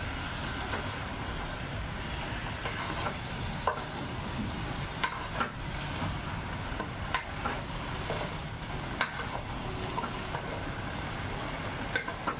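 A spatula stirring fish bones and vegetables in a cooking pot, knocking against the pot now and then, while the contents sizzle as they fry. A steady low hum runs underneath.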